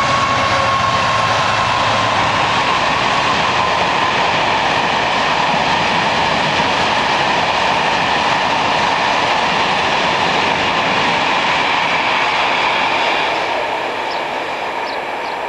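Class 66 diesel locomotive hauling a train of china clay tank wagons across a railway bridge: a slightly falling engine tone at first, then the steady rumble of the wagons' wheels, fading in the last couple of seconds as the train passes.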